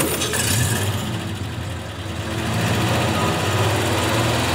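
Car engine running steadily in a film soundtrack, with a low rumble and a steady rushing noise of wind and road over it.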